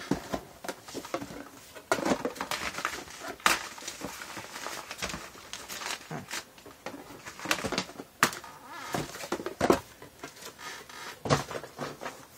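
Small cardboard blind boxes being handled and set down on a tabletop: irregular rustling and scraping of cardboard with several sharp knocks as boxes are put down.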